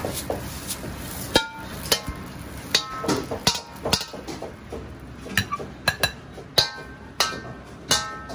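Metal ladle clanking and scraping against an iron wok as finished fried rice is tossed and scooped onto a plate: about a dozen sharp, ringing strikes at irregular intervals.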